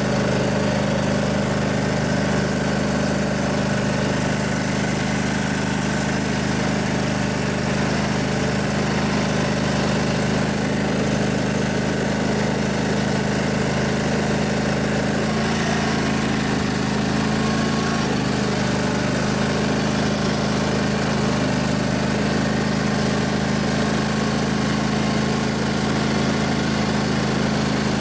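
Briggs & Stratton Intek OHV V-twin engine of a riding lawnmower running steadily at an even speed as the mower drives along.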